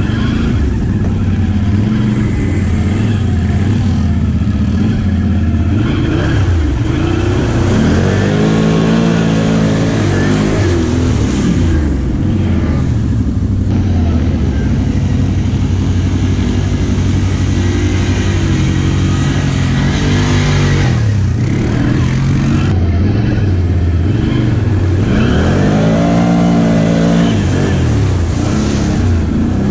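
Can-Am XMR ATV's V-twin engine running under the rider, revving up and easing off several times as it is ridden through mud.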